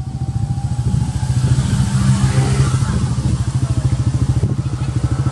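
An engine idling with a steady, rapid low throb, which swells louder for a moment about two seconds in.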